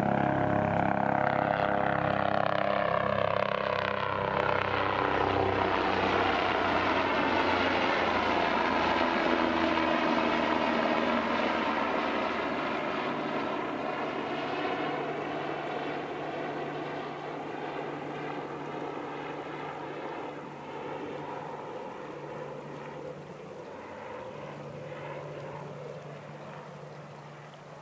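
Helicopter flying over, its rotor and engine sound loudest at first and slowly fading as it moves away.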